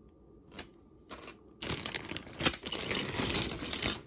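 A bag of jewelry being handled, crinkling and rustling, starting about a second and a half in after a couple of faint clicks.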